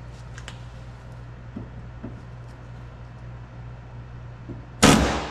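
Huck lockbolt installation tool firing: a single loud, sharp crack near the end that dies away within half a second, over a low steady hum.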